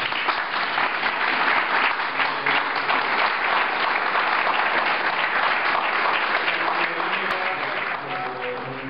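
An audience applauding, a dense clatter of many hands clapping that thins out near the end.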